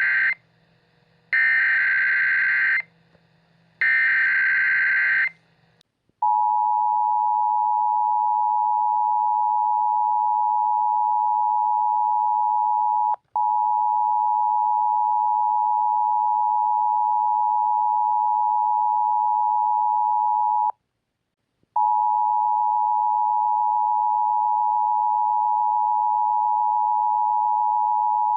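Emergency Alert System SAME data header: three buzzy digital data bursts of about a second and a half each, with short gaps between them. About 6 s in comes the steady single-pitch NOAA Weather Radio warning alarm tone near 1 kHz. It cuts out for an instant around 13 s and for about a second near 21 s, then resumes.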